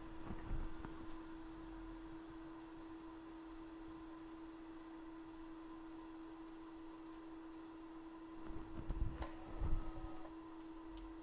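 A steady, faint hum at one fixed pitch, with a few soft low bumps about half a second in and a louder cluster of them near the end.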